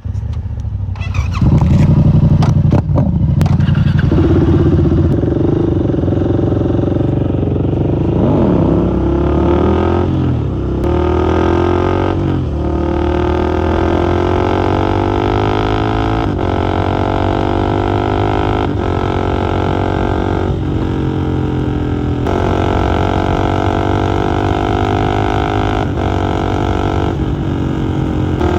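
Husqvarna 701 single-cylinder motorcycle engine pulling away and accelerating through the gears, its note rising in each gear and dropping briefly at each upshift, every few seconds.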